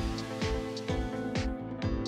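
Background music with held notes over a steady beat, about two beats a second.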